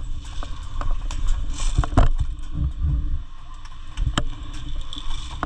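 A low rumble of movement or wind noise on the microphone, with scattered sharp clicks and knocks at irregular intervals, the loudest about two seconds in and again about four seconds in.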